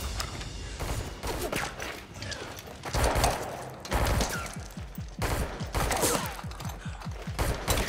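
Film gunfight sound effects: gunshots in quick succession, coming fastest in a rapid run about two-thirds of the way through.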